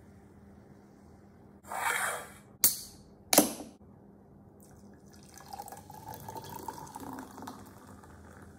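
Orange soda poured from a can into a glass, a steady filling sound with a slightly rising tone starting about five seconds in. Before it, a short hiss and two sharp clicks from handling the cans.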